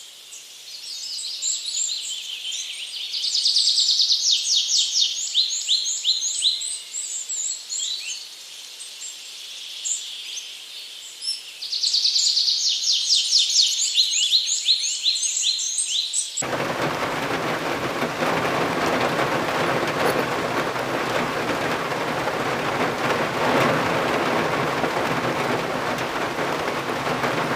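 Small birds chirping in quick, high trills, loudest in two bouts. About sixteen seconds in this cuts off suddenly to a steady rushing noise of water.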